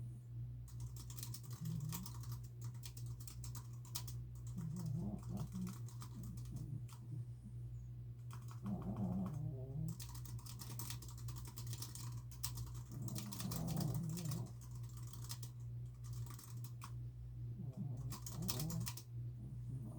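Typing on a computer keyboard in quick bursts with short pauses, over a dog snoring slowly, one snore about every four to five seconds. A steady low hum runs underneath.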